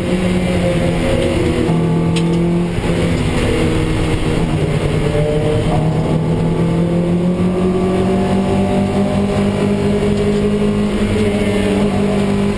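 In-car sound of a Toyota MR2 Roadster race car's 1.8-litre four-cylinder engine running hard under racing load. An upshift about three seconds in brings a brief drop, after which the engine note climbs slowly again.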